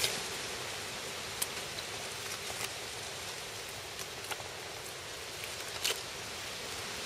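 A steady outdoor hiss, with a few faint clicks and rustles from a knife and gloved hands cutting meat from a deer carcass.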